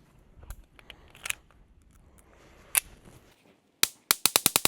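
.22 Long Rifle gun firing: a single shot about three seconds in, then a rapid string of about seven shots in the last second, fired as fast as the trigger can be pulled.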